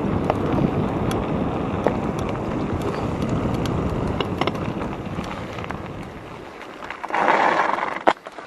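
Mountain bike rolling down a trail: rumbling tyre and wind noise on the microphone, with scattered sharp clicks and rattles from the bike, dying down about six seconds in. Near the end there is a short noisy burst, then one sharp knock.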